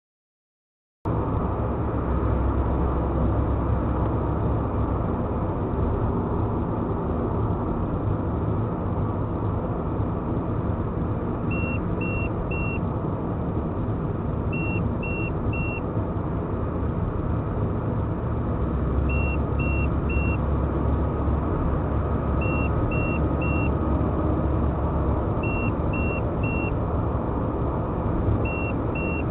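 Car driving on a highway, with steady road and engine noise picked up inside the cabin, starting about a second in. Over it, the LT1612 driving-warning unit sounds its forward collision warning: short high beeps in sets of three, six sets a few seconds apart from about twelve seconds in.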